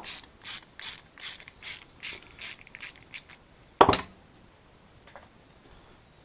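Ratchet wrench clicking in an even run of strokes, about two or three a second, for roughly three seconds, working a nut on a chainsaw's oil pump; a single loud knock follows about four seconds in.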